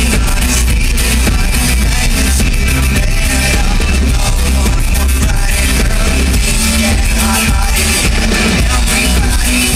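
Live rock band playing loudly, with heavy bass throughout.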